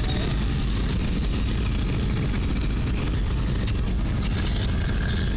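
Steady low rumble of a car heard from inside its cabin as it rolls slowly over grass.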